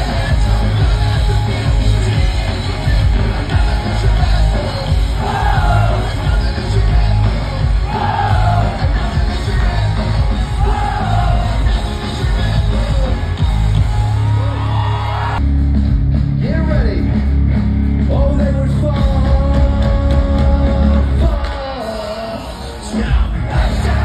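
Live rock music with singing through a festival stage's sound system, recorded from inside the crowd with yelling from the audience. The sound changes abruptly about two-thirds of the way through, and loudness dips briefly near the end.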